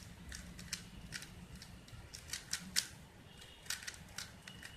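Rubik's cube layers being turned by hand: a string of sharp plastic clicks at irregular intervals, some coming in quick pairs.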